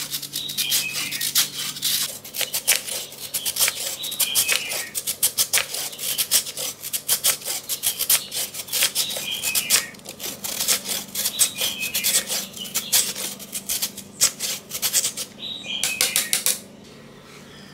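Carrot being grated on a stainless steel grater: quick rasping strokes of the vegetable against the metal blades, stopping near the end.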